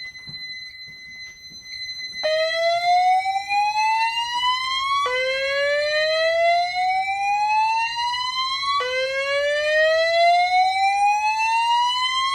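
Fire alarm voice-evacuation speakers sounding the whoop alert tone between voice messages: a rising sweep that starts about two seconds in, then drops back and rises again, three times, each rise lasting three to four seconds. A steady high-pitched tone runs underneath.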